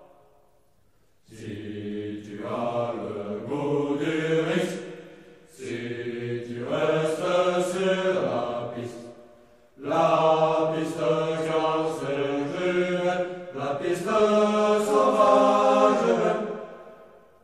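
Choral singing: voices holding slow chords in long phrases, with brief pauses between them.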